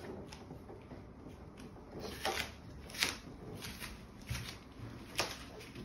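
Quiet handling sounds: faint rustling with three short clicks, about two, three and five seconds in.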